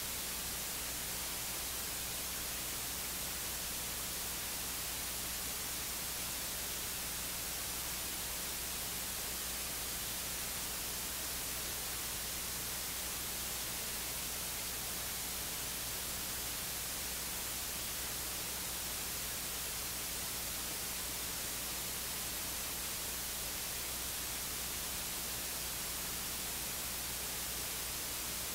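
Steady electronic hiss, like a live audio feed with no signal, with a low electrical hum beneath it; no voice comes through.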